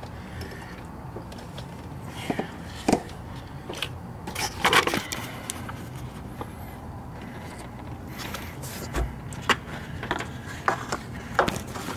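Scattered clicks, taps and scrapes of hands handling a Ford F-150's ignition coil and its rubber boot among the hoses of the engine bay, as the newly fitted coil is tugged to check it is seated on its spark plug. A low steady hum sits underneath.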